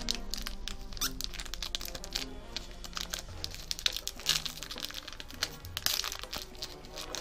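Foil trading-card booster pack wrappers crinkling and tearing, with sharp crackles scattered throughout, over background music.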